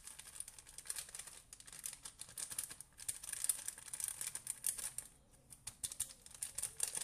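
Thin julienned apple strips being tossed by hand in a bowl to mix in cinnamon: a dense, irregular crisp rustling and clicking, with a short lull a little after the middle.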